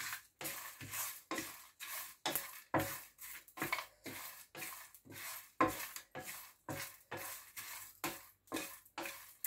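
Wooden spatula scraping and stirring dry whole spices in a nonstick frying pan, the spices shuffling across the pan in quick strokes, about two to three a second, as they are dry roasted.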